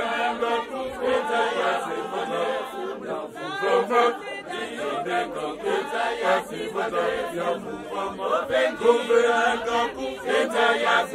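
A large group of men and women singing together as a choir, chanting a hymn with no instruments heard.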